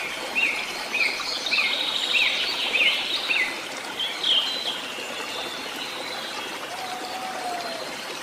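Birds chirping over a steady hiss. A quick run of short, repeated chirps comes in the first few seconds, then fewer calls, with one longer, lower whistle near the end.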